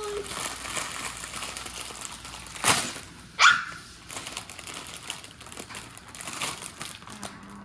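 Plastic Lego parts bags crinkling and small bricks clicking together. About two and a half seconds in there is a sharp knock, and straight after it a short high squeak that falls in pitch.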